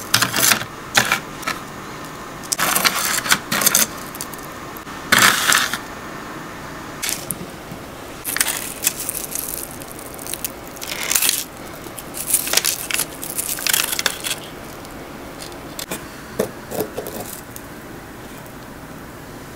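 Metal tongs clinking and scraping against a stainless steel tray as fried churros are turned in granulated sugar, in a string of short clatters. Later, crisp sugared churros crunch as they are broken apart by hand.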